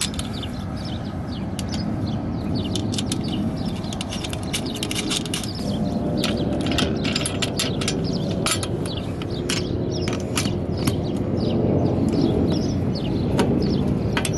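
Irregular metallic clicks and clinks of a bolt and nut being fitted and tightened with wrenches through an aluminum mounting frame, over steady low background noise.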